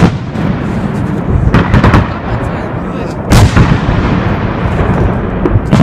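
Fireworks salute at close range: several heavy bangs of shells bursting, the loudest about three seconds in, each with an echoing tail over a steady low rumble.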